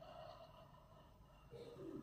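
A person yawning quietly: a soft breathy sound at the start, then a faint voiced, downward-bending yawn sigh about a second and a half in.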